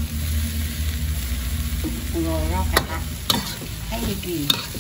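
Stir-fried noodles and greens sizzling in a hot wok, the fish sauce just poured around the wok's rim. In the second half a metal spatula scrapes and knocks against the wok several times as the food is tossed.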